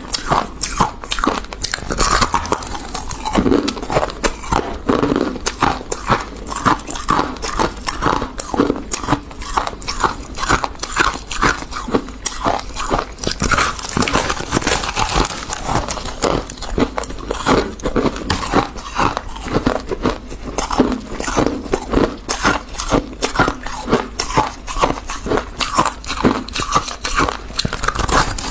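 Refrozen freezer frost being bitten and chewed: a dense, rapid run of crisp crunches.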